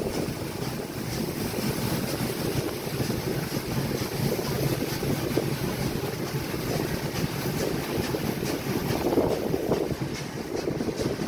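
Wind rushing over the microphone at the open window of a moving train carriage, over the steady rumble of the coach rolling along the track.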